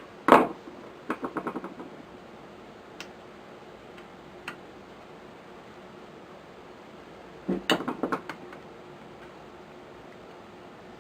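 Small metal rifle parts and tools clinking and rattling as they are handled: a sharp clink with a quick rattle just after the start, a couple of faint ticks, then a second cluster of clinks about seven and a half seconds in.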